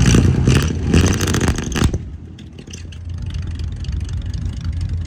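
Classic lowrider car's engine and exhaust running: loud, with a rev, for about the first two seconds, then dropping to a steady low idle rumble.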